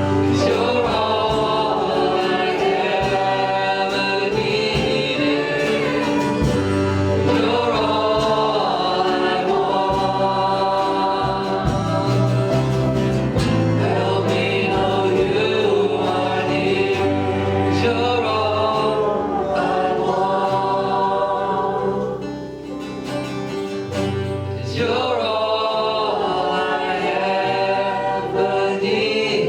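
Congregation and worship band singing a gospel worship song, voices with guitar and bass accompaniment, with a brief drop in volume near the end.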